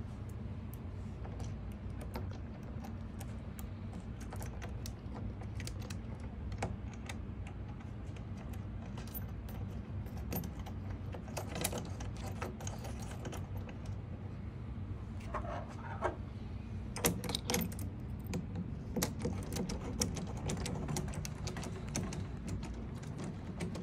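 Small metal nuts, lock washers and flat washers clicking and clinking as they are picked up from a tabletop and threaded by hand onto mounting studs. Scattered clicks, busier in the second half, over a steady low hum.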